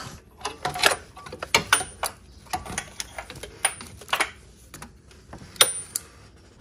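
Irregular metallic clicks and clinks from a ratchet wrench and socket unscrewing the engine's oil pressure sensor, a few of them ringing briefly like metal tapping metal.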